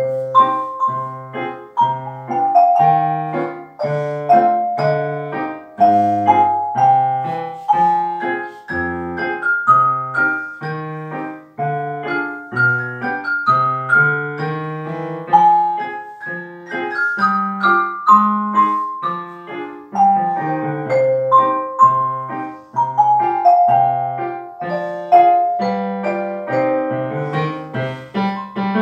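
Xylophone melody played with mallets over a piano accompaniment of low repeated notes and chords, at a steady moderate pace.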